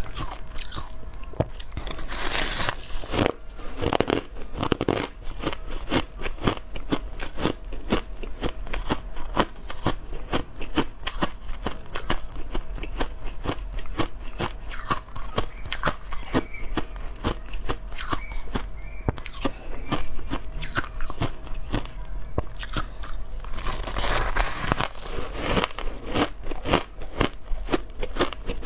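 Crushed ice being chewed: a fast, irregular run of sharp crunches as the teeth break the ice, several a second.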